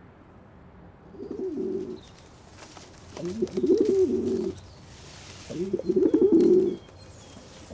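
Pigeon cooing: three low, warbling coos of about a second each, spaced a second or so apart.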